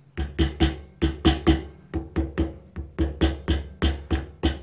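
Small hammer tapping rapidly, about four light strikes a second, on the bent-over end of a new steel boot clamp band on a CV joint, flattening it so that it holds the band's tension.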